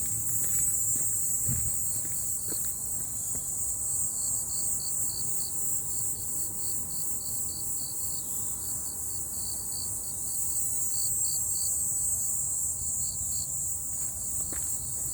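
Insects calling in a steady high chorus, with a second insect's call pulsing several times a second through the middle. Faint footsteps on the path near the start and near the end.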